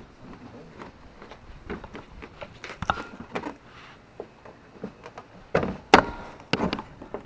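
Plastic trim removal tool prying at the edge of a Nissan Altima tail light assembly: scattered plastic clicks, taps and scrapes, with a louder cluster of knocks about five and a half seconds in.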